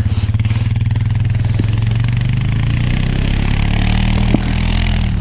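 ATV engine running under throttle, its pitch climbing a little from about halfway through, with a rising hiss alongside.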